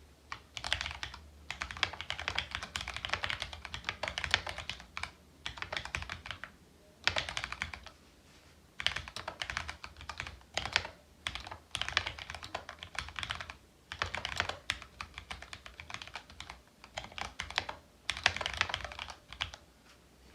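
Typing on a Mecha Mini mechanical keyboard with Cherry MX Brown switches that have been spray-lubed with Superlube, in runs of keystrokes broken by short pauses.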